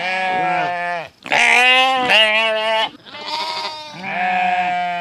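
Sheep bleating: a run of long, quavering baas one after another, about four in all, the loudest about a second and a half in.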